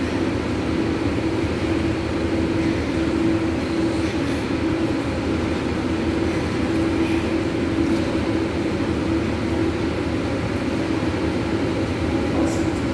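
Steady machine hum with a low droning tone, the ventilation system of an indoor pool room running.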